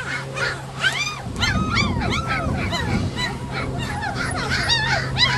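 A litter of three-week-old German shepherd puppies whimpering and yelping. Their short, high, arching cries overlap several times a second.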